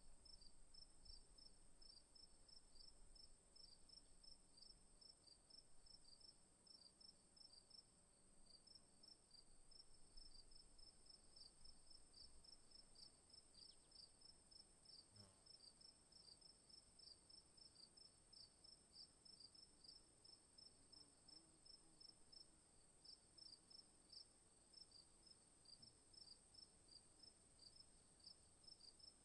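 Faint chorus of crickets chirping in a quick, even rhythm of short chirps, about three or four a second, over a steady high-pitched insect drone.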